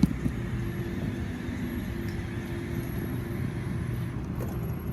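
Oscar electric multiple unit standing at the platform with a steady hum, a few faint held tones running through it. A single sharp click comes right at the start.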